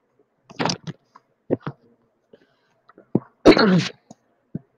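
A person's voice making short non-speech noises close to the microphone: a breathy burst about half a second in, a few small clicks, and a loud, short, explosive throat sound with a falling pitch a little past halfway, like a cough or sneeze.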